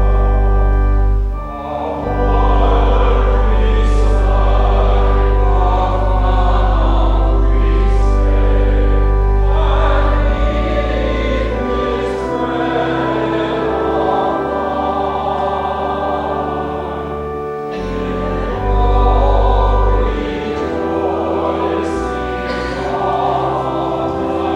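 A choir sings slow church music over long, sustained chords with a steady bass that changes every few seconds.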